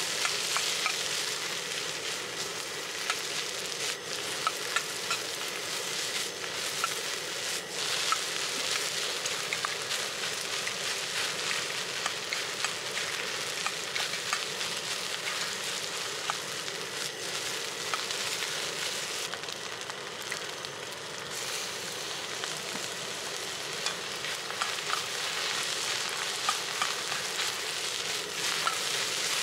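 Egg fried rice sizzling in a hot wok, stirred and scraped with a ladle, with many small clicks of the ladle against the wok over a steady frying hiss.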